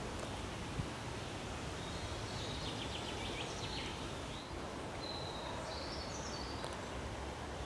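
Steady low rumble and hiss of outdoor wind on the microphone. A small bird sings high, short chirps about two seconds in, then a brief trill a couple of seconds later.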